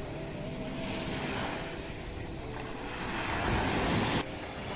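Small waves breaking and washing onto a sandy beach, with wind on the microphone. The noise swells about three seconds in and stops abruptly just after four seconds.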